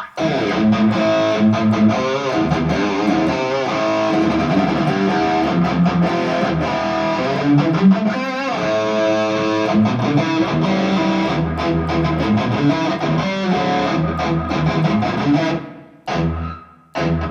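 Electric guitar played through a Valeton GP-200 modeler on its Peavey 6505 high-gain amp model, with reverb on and delay off, heard in the room through two Headrush 108 active monitors. A continuous run of distorted playing lasts about fifteen seconds, stops, and is followed by a couple of short stabbed chords near the end.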